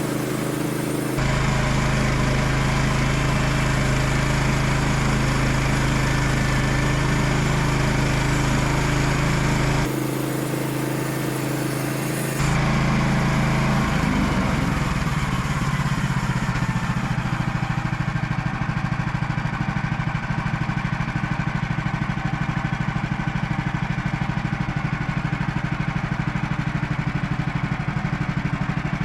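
Sawmill's gasoline engine running, with abrupt jumps in tone. About a third of the way in it changes to a lower, evenly pulsing run.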